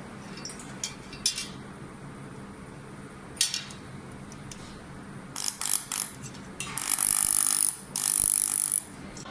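Handheld laser welder on galvanized steel: a few sharp clicks, then short choppy bursts of welding, then two longer bursts of crackling hiss with a thin high whine, each about a second long.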